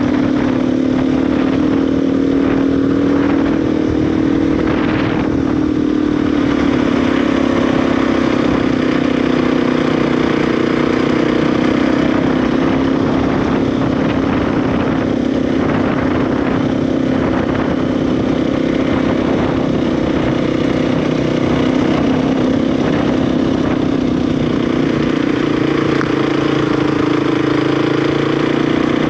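KTM 350 EXC single-cylinder four-stroke dirt bike engine running at a fairly steady speed while being ridden, its note rising and falling slightly.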